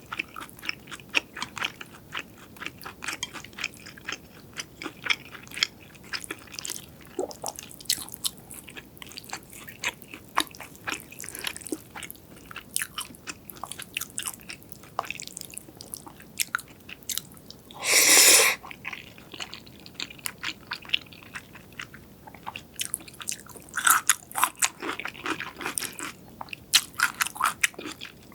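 Close-miked eating sounds: rapid crunchy chewing and biting clicks, likely of fried food. About two-thirds of the way through comes a louder half-second burst of noise.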